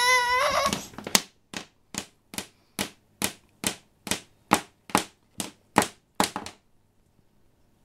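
A baby's cry trails off, then an electrical cord is whacked against a wooden floor about a dozen times at a steady two to three whacks a second, stopping shortly before the end.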